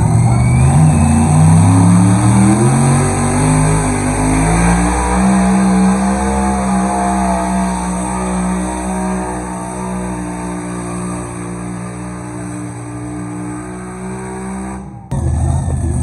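Engine of a small pulling vehicle hauling a weight-transfer sled down a pull track: its revs climb over the first several seconds, then hold steady while the sound slowly gets quieter as it moves off down the track. It cuts off suddenly near the end.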